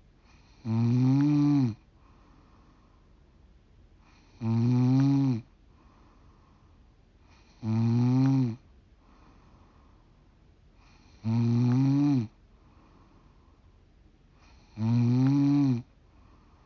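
A 45-year-old woman snoring: five loud, pitched snores about a second long, one every three and a half seconds or so, each dipping in pitch at its end.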